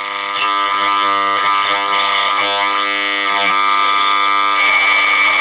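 Music from a broadcast station playing through a 1947 Astor Mickey KM valve radio's speaker: sustained, held notes like a long chord, with the upper tones brightening near the end.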